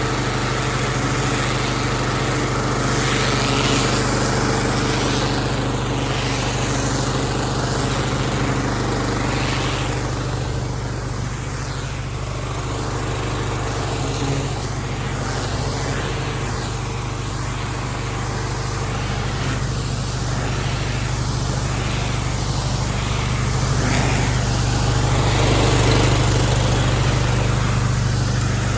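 Pressure washer engine running steadily.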